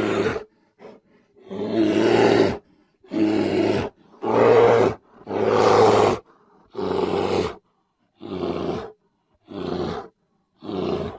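Brown bear roaring: a series of about nine rough, short roars with brief pauses between, each under a second long, the last few shorter and quieter.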